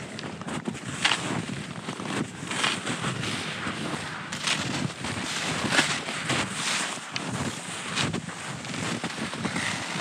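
Cross-country skis swishing and crunching over snow in a steady stride, a stroke about every three-quarters of a second, with wind buffeting the microphone.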